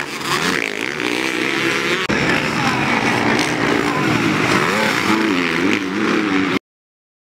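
Several racing motorcycle engines revving, their pitch rising and falling unevenly, until the sound cuts off suddenly about six and a half seconds in.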